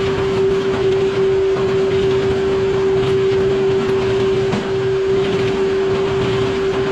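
Sawmill running steadily through poplar wood, a constant machine hum holding one steady tone over a dense, rough noise of the cut.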